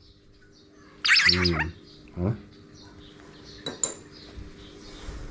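A pet magpie gives a harsh begging squawk about a second in, gaping for food held out on chopsticks. A few sharp clicks follow near the four-second mark.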